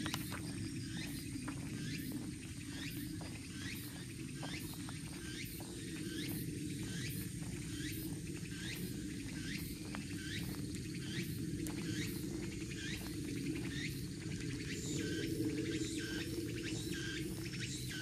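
Footsteps of a walker and a small dog on a paved forest lane, under a steady high insect buzz and a short rising call repeated evenly a little under twice a second.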